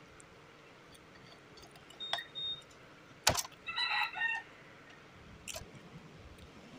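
Metal fork and spoon clinking on a ceramic plate of sticky rice: a few sharp clinks, the loudest about three seconds in, one leaving a short ring. A brief pitched call, made of several short notes, sounds in the background just after the loudest clink.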